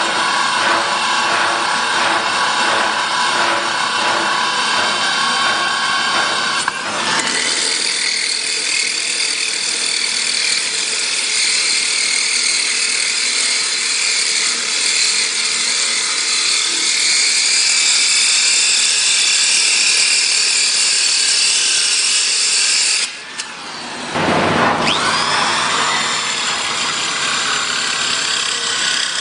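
Electric drill running a diamond core drill bit, a steady high-pitched whine. About 23 s in it drops away briefly, then spins back up with a rising whine.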